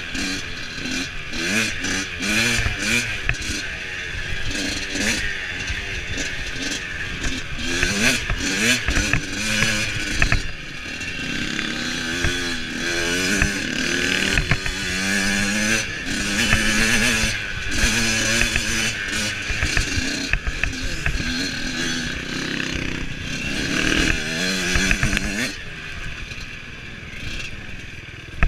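Off-road dirt bike engine revving up and down as the rider works the throttle along the trail, with rattle and wind noise on the handlebar camera. Near the end the engine drops back as the bike slows almost to a stop.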